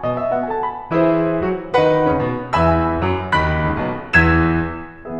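Background piano music, chords struck about once a second, the loudest a little past four seconds in, then fading.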